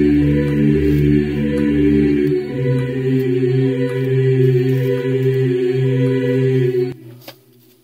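Background music of choir-like chanting voices holding long sustained chords, with a change of chord about two and a half seconds in. It cuts off suddenly near the end.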